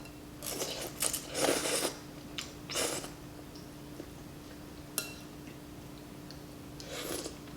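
Close-up eating sounds of noodle soup: a few short bursts of chewing and biting, with a single sharp click about five seconds in. A faint steady hum lies underneath.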